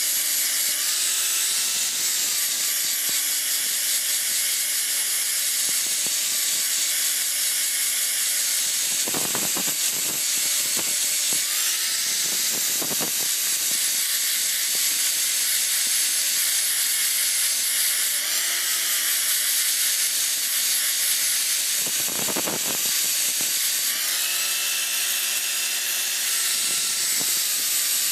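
Angle grinder with a grinding disc working the steel of a knife blade: a steady high motor whine over the hiss of the disc on the metal, the pitch sagging briefly a few times as the disc is pressed in. A few short, rough scraping bursts come through near the middle.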